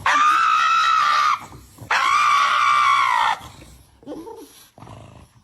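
Cat yowling loudly: two long, high, drawn-out yowls of about a second and a half each, the second starting about two seconds in, then fainter scuffling sounds.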